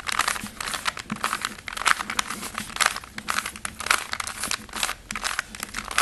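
Plastic 3x3 Rubik's Cube being turned quickly by hand: a rapid, uneven run of clicks and rasps as the layers snap round through a repeated sequence of face turns.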